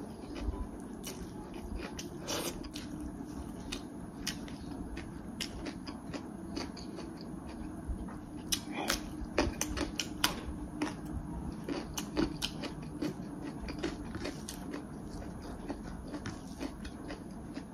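A person eating a meal of rice, dal and fried pork: scattered sharp clicks and taps from eating off a plate, with biting and chewing, over a faint steady low hum.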